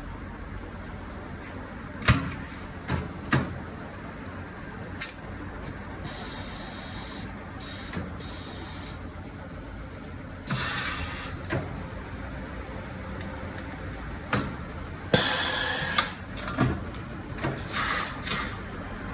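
Air tools and hand work during a car tyre change: several bursts of compressed-air hiss, each about a second long, mixed with scattered sharp metallic knocks and clacks over a steady low background.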